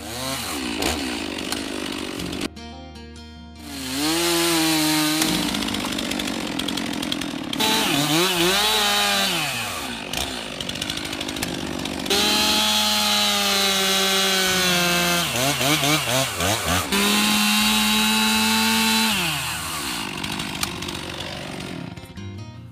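Two-stroke chainsaw carving into a log. The engine revs up and down as the throttle is worked, with stretches held at a steady high speed while cutting, and it drops back near the end.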